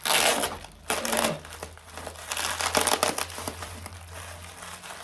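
Packaging crinkling and rustling in bursts as it is handled, the loudest in the first second and again around the three-second mark, with small clicks between.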